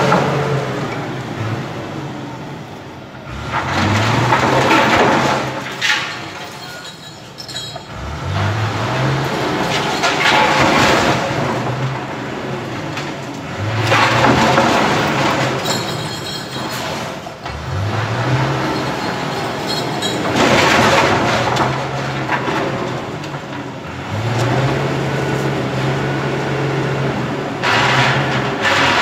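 Truck engine revving hard over and over, each surge climbing in pitch and then holding, with loud bursts of engine noise, while the truck strains against the bank front in a ram-raid on the ATM.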